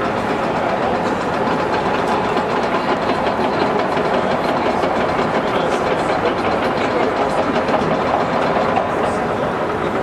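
Caterpillar 963C track loader's diesel engine running steadily, with the rapid clatter of its steel tracks.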